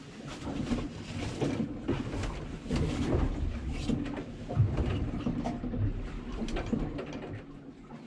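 A person shifting about and settling into a sailboat bunk: rustling of clothes and bedding with irregular soft knocks.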